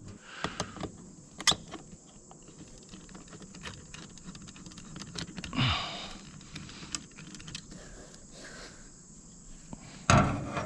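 Scattered light clicks and metallic taps of hand tools and parts being handled on an old excavator, with a sharper knock about a second and a half in and a louder knock near the end.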